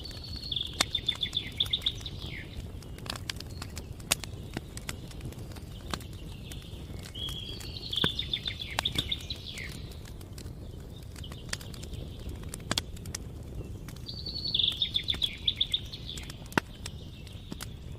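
Wood fire crackling, with frequent sharp pops over a low steady rumble. A songbird sings a short trilled phrase three times, roughly every seven seconds.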